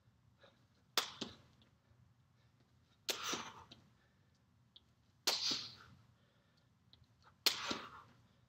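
A person doing jumping knee tucks, four times about two seconds apart: each a sharp landing on the floor followed by a forceful breath out that fades over about half a second.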